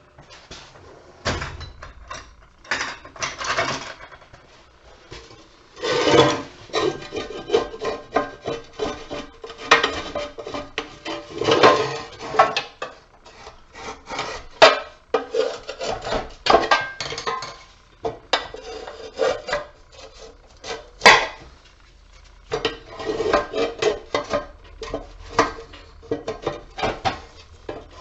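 Irregular scraping, rubbing and clinking of tools on the metal parts of a light fixture being taken apart for scrap, with one sharp knock about three-quarters of the way through.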